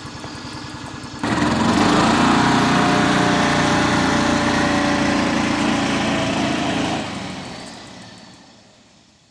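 A vehicle's engine idling with a steady beat. About a second in it suddenly gets much louder as the vehicle pulls away, then it fades out over the last two seconds as it drives off.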